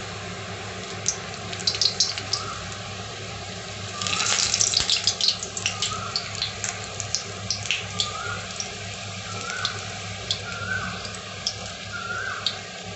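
Maida dough shell on a steel tumbler deep-frying in hot oil in a kadai: steady sizzling with scattered crackles and pops, busiest about four seconds in.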